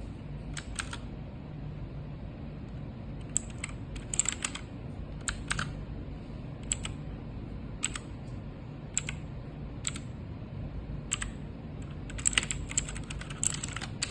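Keys of a K620 61-key mechanical keyboard being pressed one or two at a time, about once a second, with a quicker run of clicking key presses near the end, over a steady low hum.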